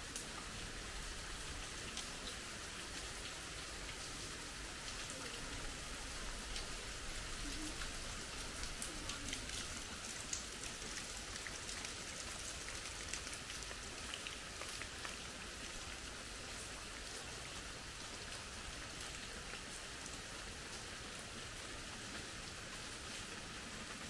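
Steady rain falling, with many sharp individual drops ticking close by.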